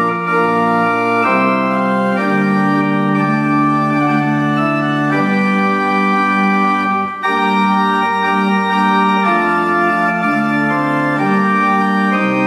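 Old English pipe organ, with parts possibly as early as 1780, playing slow held chords that change every second or two. There is a short break about seven seconds in.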